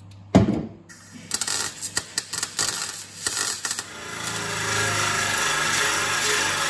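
Metal bodywork on a car's steel shell: a single clank, then irregular scraping and clicking, then from about four seconds an angle grinder running steadily against the steel of the body while rusted metal and welds are ground back.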